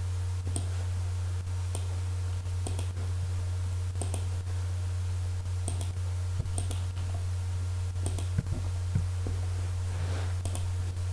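Computer mouse clicking at irregular intervals, single clicks and some quick pairs, over a steady low electrical hum.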